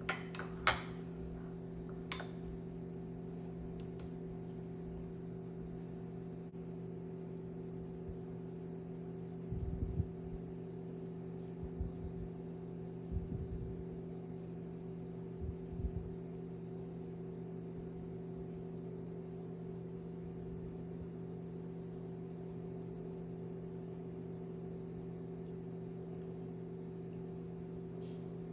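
Steady low machine hum with several held tones, like a kitchen appliance running. A metal spoon clinks against a ceramic bowl a few times in the first few seconds, and soft low bumps come from handling around the middle.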